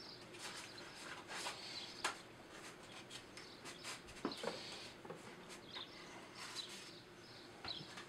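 Faint, scattered clicks and light scrapes of small wooden pieces being handled on a workbench, with one sharper tap about two seconds in.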